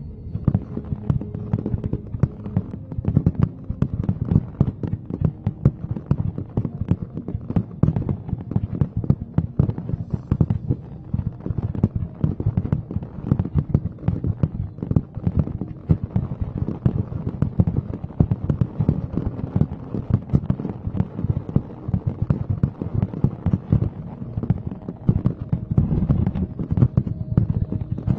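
Fireworks display: a continuous rapid barrage of bangs and crackles, many bursts a second, with no pause.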